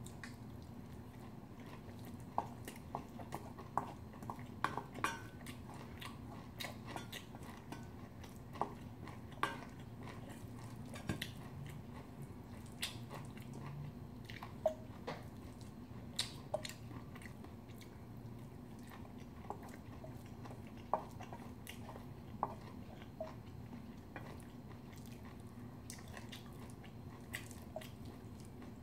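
Close-up eating sounds: chewing and biting of bibimbap, with a spoon and chopsticks clicking and scraping against a stainless steel bowl in scattered short ringing clinks. A low steady hum runs underneath.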